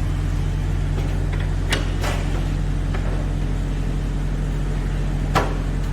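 Radial arm saw's electric motor running steadily with a low hum. A few light clicks come from the machine, with a sharp knock about five seconds in.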